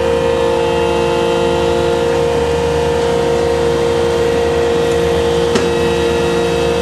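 Engine and deck machinery of a purse-seine fishing boat running with a loud, steady hum, and a single sharp knock a little past five seconds in.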